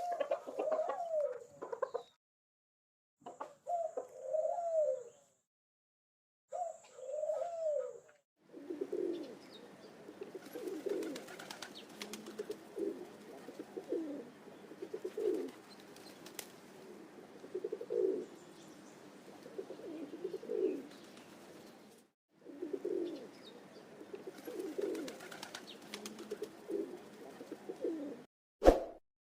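Pigeon cooing: three short bouts of cooing with pauses, then a long run of repeated low rolling coos, roughly one a second, broken once briefly. A sharp click comes near the end.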